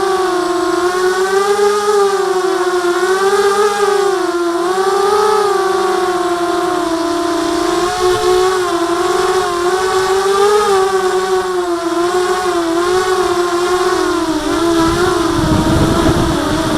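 ZMR250 racing quadcopter's motors and propellers whining, the pitch wavering up and down constantly as the throttle changes: jerky flight that the pilot puts down to PID gains set too high. A low rumble joins near the end.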